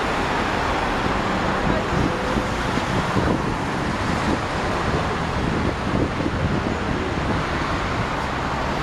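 Steady hum of city road traffic, cars and buses passing on a nearby street.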